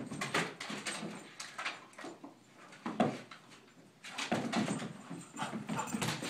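A dog panting hard in short noisy bursts, with a quieter stretch in the middle and one sharp knock about three seconds in.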